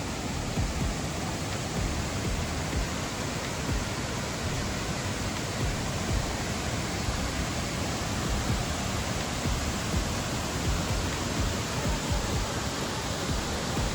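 Steady rushing of water from a large waterfall.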